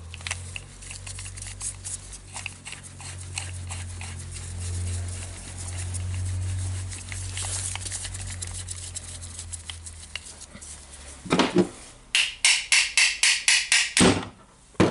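Small metal clinks as a steel bearing separator is fitted and its plates adjusted by hand on an armature shaft, over a low steady hum. Near the end a fast, even run of sharp clicks, about six a second, as a ratchet wrench turns the puller's centre bolt to draw the bearing off.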